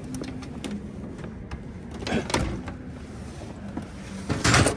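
Things being shifted around in an SUV's cargo area: scattered knocks and rustling, a cluster of bumps about two seconds in and a louder clatter near the end, over a low steady hum.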